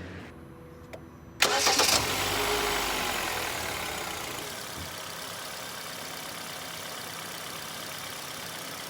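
Hyundai Solaris engine cranked by the starter about a second and a half in, catching and settling into a steady idle. The running engine drives the power steering pump, circulating freshly filled flushing fluid through the steering rack.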